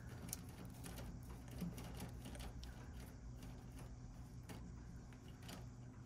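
Faint rustling of wires and light clicks of a spade connector being handled and pushed onto a terminal in furnace wiring, over a low steady hum.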